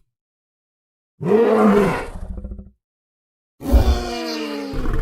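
Carcharodontosaurus dinosaur roar sound effects: two separate roars with dead silence between. The first comes about a second in and trails off, and the second starts after about three and a half seconds with a falling pitch.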